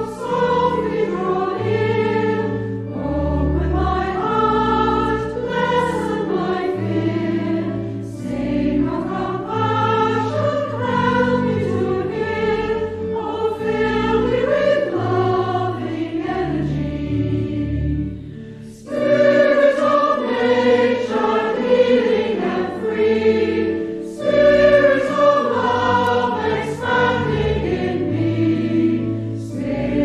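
Congregation singing a hymn together over sustained low accompanying notes, with a short break about two-thirds of the way through before the next verse begins.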